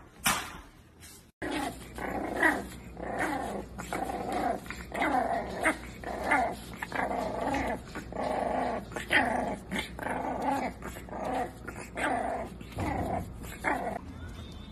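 A puppy growling and yapping in short repeated calls, about two a second.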